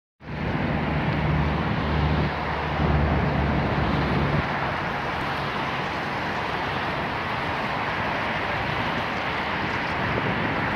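Steady outdoor city ambience: a constant rush of distant vehicle traffic, with a low engine hum that is strongest for the first four seconds or so and then fades.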